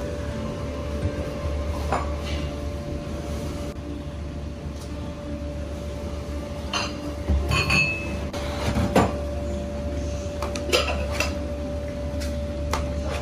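Cookware and utensils clinking and knocking against a pot, a handful of separate strikes at irregular intervals, over a steady low hum.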